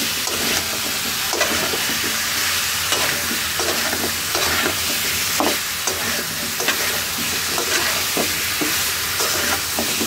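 A metal spatula scraping and knocking irregularly against a metal pan as chunks of yam and eggplant are stirred and fried in spice paste, over a steady sizzle.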